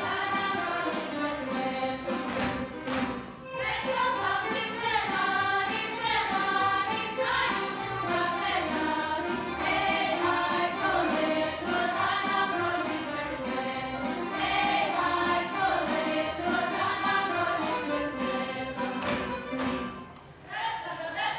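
A group of voices singing a Međimurje folk song in harmony, with a tamburica band playing a steady beat underneath. The singing breaks off briefly near the end.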